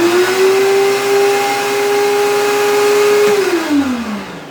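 DeWalt benchtop thickness planer running empty, with no wood fed through. Its motor and cutterhead reach a steady whine, then are switched off a little past three seconds in and wind down with a falling pitch.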